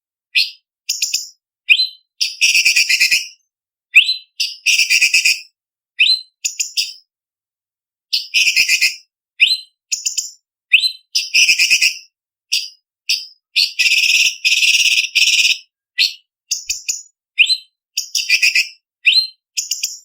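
Orange-bellied leafbird (cucak cungkok) singing a varied, high-pitched song: short rising whistled notes alternating with longer harsh, rapid chattering runs, each phrase broken off by a brief silence.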